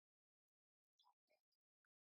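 Near silence, with a few very faint, brief blips about a second in.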